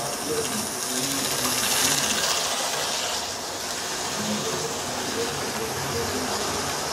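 Model trains running round the layout: a steady whir of small electric motors and wheels on track, with a hiss that swells about two seconds in.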